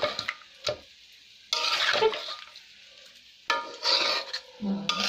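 Spatula stirring and scraping through oily, spice-coated hilsa fish pieces in a pan. There are about three scraping strokes roughly two seconds apart, with a single short knock under a second in.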